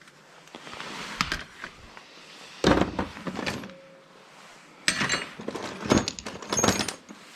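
Scrap metal parts clattering and knocking as they are handled and sorted, in four or so bursts, the later ones with a brief metallic ring.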